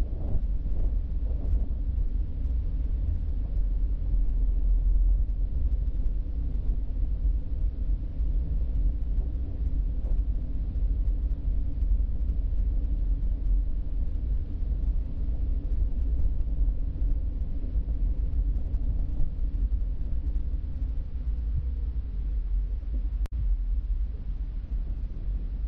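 Steady low rumble of a car driving, its road and engine noise picked up by a dashcam inside the car. There is a momentary dropout near the end.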